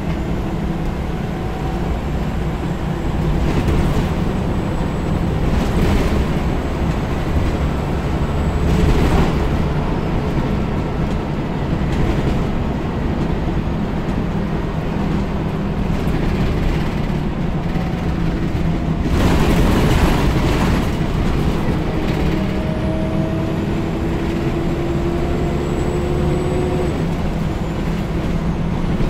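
Scania L94UB bus with Wright Solar body heard from inside the saloon on the move: a steady engine drone with road noise. There are several brief swells of louder rushing noise, and near the end a whine rises slowly in pitch as the bus gathers speed.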